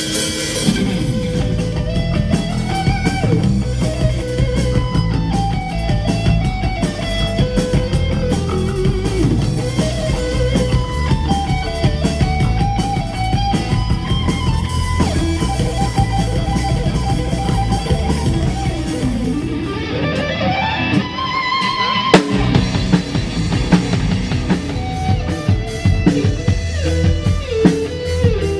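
Rock band playing an instrumental passage: electric guitar carrying the melody over bass and drums. About two-thirds of the way through, the lead line makes a long rising glide, followed by a sharp hit.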